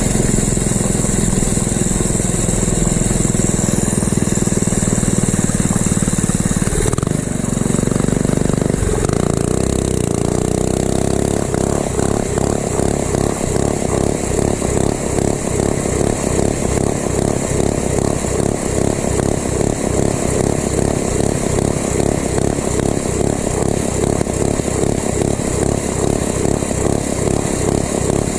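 Mini bike's small four-stroke engine running steadily at high revs under way, then dropping after about seven to nine seconds to a slower, pulsing run. It is held back by its engine governor, which keeps kicking in and limiting the bike to about 25 mph.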